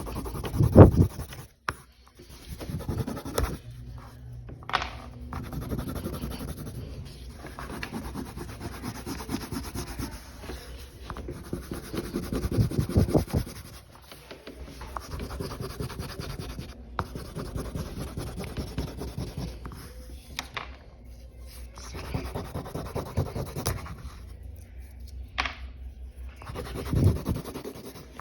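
A colouring tool scratching back and forth across a sign in steady strokes, with short pauses and a few knocks, the loudest about a second in and again near the end.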